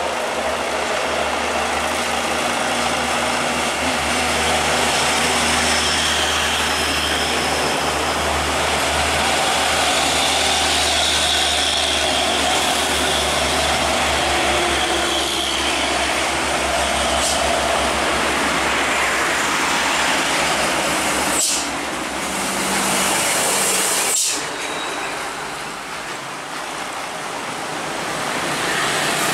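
Heavily loaded diesel trucks running hard under load as they climb past, mixed with passing cars and motorbikes. The sound breaks off abruptly twice in the later part, where one passing shot gives way to the next.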